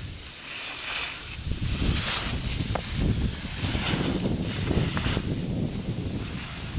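Skis scraping and hissing across steep, firm snow in a series of turns, the noise surging roughly every half second to second, with a couple of sharp clicks, over wind buffeting the microphone.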